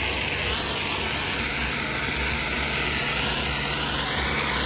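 Hot-water pressure washer spraying high-pressure water onto concrete: a steady, even hiss of the spray, with the washer's engine humming underneath.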